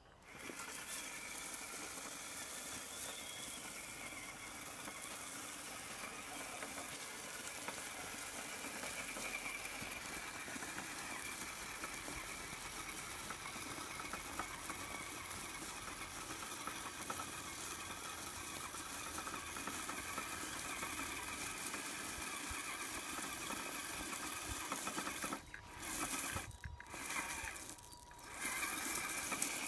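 Axial SCX10 RC crawler's electric motor and geared drivetrain running with a steady high whine, gravel rattling under its tyres as it climbs. The whine cuts out briefly a few times near the end, then resumes.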